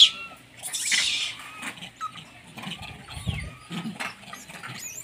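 Monkeys trapped in a wire-mesh cage calling: harsh high screeches, loudest about a second in, mixed with many short gliding squeaks.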